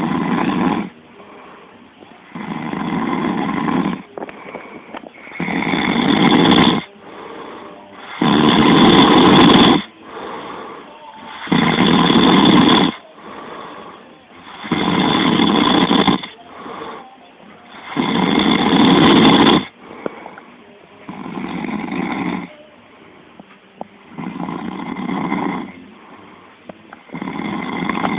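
A man snoring in his sleep: a loud snore about every three seconds, each lasting a second or so, with softer breaths between them. The last few snores are a little softer.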